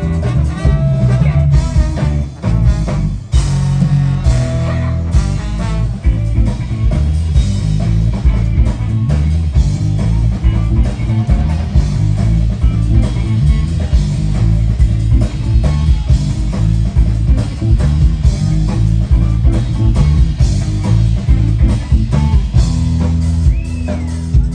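Live band playing an instrumental passage: electric guitar over bass guitar and drum kit.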